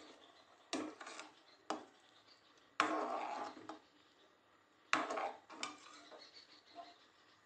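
Perforated steel ladle stirring spiced broth in an aluminium pressure cooker, scraping and knocking against the pot about five times; two of the strokes, near the middle and a little later, are longer scrapes.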